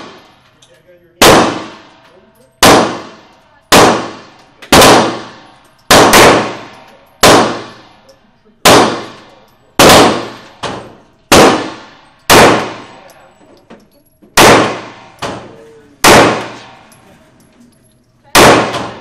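Heckler & Koch USP Compact 9mm semi-automatic pistol fired in slow, deliberate shots, more than a dozen at roughly one a second, with a longer pause before the last. Each sharp report rings on in the enclosed indoor range.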